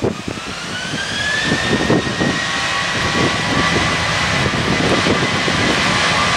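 Boeing 737-800's CFM56-7B turbofans spooling up on the takeoff roll. A rising whine levels off about two seconds in, over a steady engine rumble that slowly grows louder.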